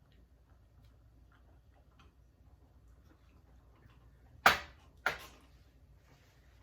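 Two sharp knocks on a table about half a second apart, the first louder, each dying away quickly, over faint small clicks of eating.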